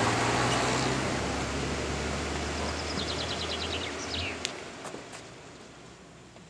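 Vintage racing car's engine running on as the car pulls away, a steady low drone that fades and dies out about four seconds in. A few sharp clicks follow near the end.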